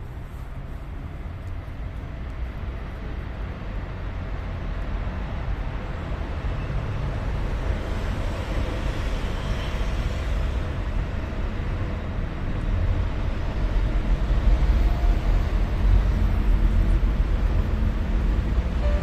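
Low, steady rumble of outdoor vehicle noise that builds gradually louder over the whole stretch.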